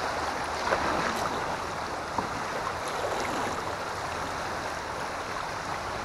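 River current running past a kayak: a steady wash of moving water, with a few faint clicks.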